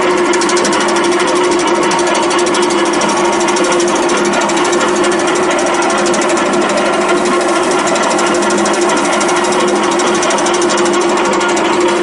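Crimped wire mesh machine running steadily: a rapid, even mechanical clatter over a steady hum.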